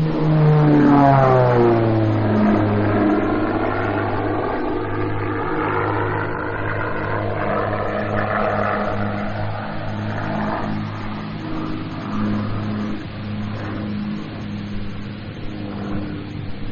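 Shrike Commander's twin piston engines running at high power. The pitch drops over the first couple of seconds, then holds steady, fading a little near the end.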